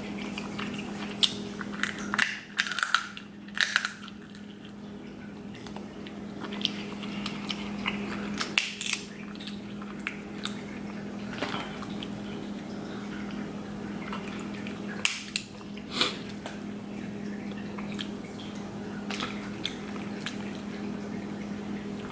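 Snow crab leg shells cracked and snapped apart by hand, with wet squishing of the sauce-soaked shell and meat. Sharp cracks come in clusters about two seconds in, around nine seconds and twice near fifteen and sixteen seconds, over a steady low hum.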